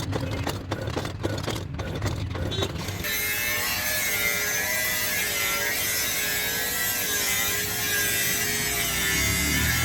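Metalworking sounds: a quick irregular series of knocks and scrapes, then from about three seconds in a machine running steadily with a wavering whine.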